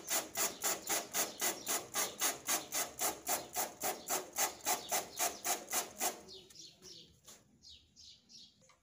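Hand trigger spray bottle pumped rapidly, about five sprays a second, spraying water onto a screen-printing screen to wash out the unexposed emulsion and develop the stencil; the spraying stops about six seconds in.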